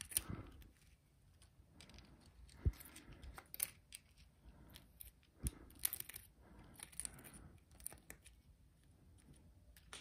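Small screwdriver scraping and picking at deposits inside the clogged seawater cooling port of a marine reverse gear: faint scratchy scrapes with scattered sharp clicks of the metal tip against the crusted passage.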